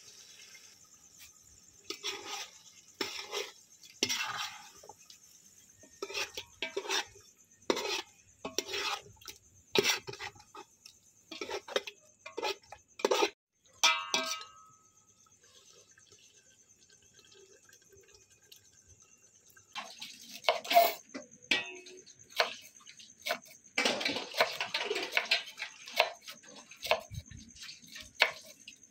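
A metal spoon knocking and scraping against a large metal cooking pot of fish curry, about once a second, with a short ringing clink about halfway through; near the end a knife chops fresh coriander on a cutting board in quick strikes.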